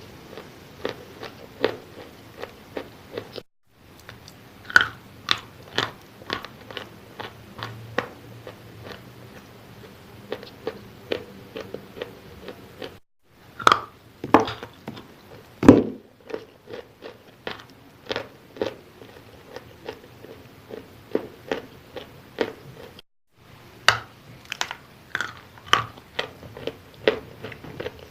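Close-miked biting and chewing of wet chalk: a steady run of crunches, several to a second, with a few louder bites standing out. It is broken by three very brief silent gaps.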